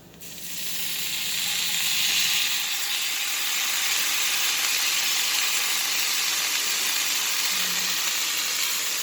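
Sauce sizzling on a hot tawa with chopped roti. The sizzle starts suddenly just as the sauce goes in, swells over the first second, then holds as a steady hiss.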